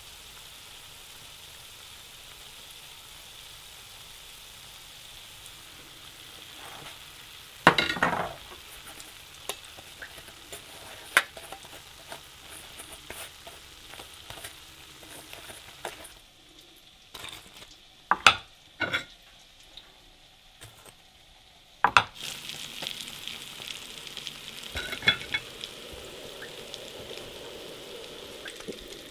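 Donuts deep-frying in moose tallow in an enamelled cast-iron Dutch oven, a steady sizzle that fades for a few seconds past the middle. A handful of sharp metal clinks come from a spoon and fork against the pot and a metal bowl.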